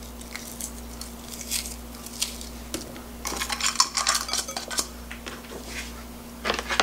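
Frozen chopped octopus pieces being crumbled by hand and knocked out of a small plastic container into a glass mixing bowl: scattered light clicks and clinks, busiest about three to four seconds in.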